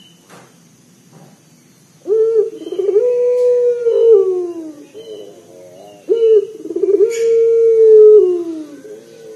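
Puter dove (domestic collared dove) cooing: two long, deep coos starting about two seconds in, each opening with a short stutter, held steady, then falling away at the end.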